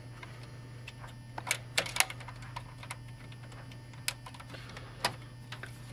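Sharp plastic clicks and clacks at uneven intervals, a cluster of them about one and a half to two seconds in and single ones later, as the tool-less PCI bracket clips of a Cooler Master HAF 932 case are pushed against a freshly fitted graphics card without snapping shut. A steady low hum runs underneath.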